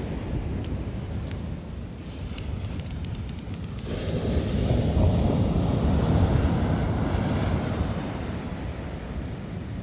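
Sea waves breaking on a beach, one surge swelling about four seconds in and washing back, over a low rumble of wind buffeting the microphone. A few faint sharp crackles from a wood campfire.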